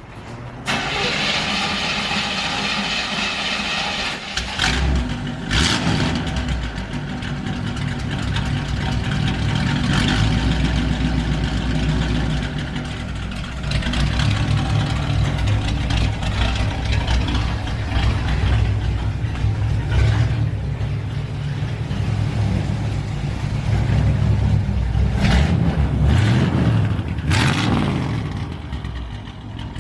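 A loud car engine catching about half a second in, then running at a rumbling idle and revved up and down several times, with quick revs near the start and two more near the end.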